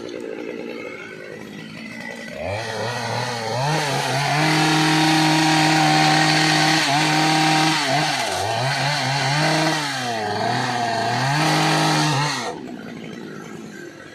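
Two-stroke chainsaw revved up about two and a half seconds in and held at high speed, its pitch dipping several times as the chain works into hard dry teak, then dropping back to idle near the end.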